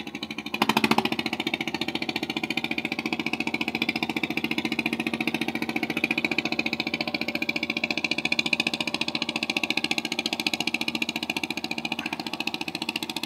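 Small fishing boat's engine chugging steadily under way, with a rapid even beat; it gets louder about half a second in and then holds steady.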